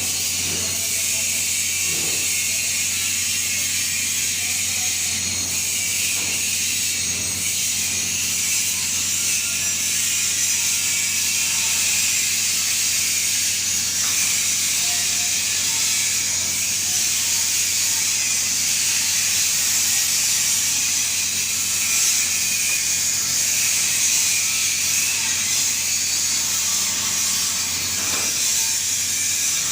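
TIG (GTAW) welding arc burning steadily: an even hiss over a constant low electrical hum.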